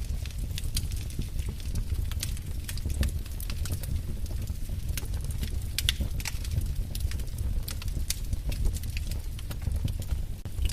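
Wood fire crackling in a fireplace: irregular sharp pops and snaps over a steady low rumble of flame.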